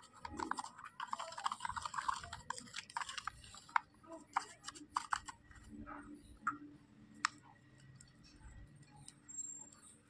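Small plastic spatula stirring and scraping a gritty wet paste in a plastic toy pot: a quick run of clicks and scrapes, dense for the first few seconds, then sparser.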